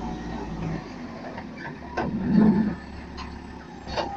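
JCB 3CX backhoe loader's diesel engine running as its front bucket tips a load of dirt into a steel dump-truck bed. The dirt lands with a heavy rumbling thud about two seconds in, followed by a couple of sharp metallic knocks.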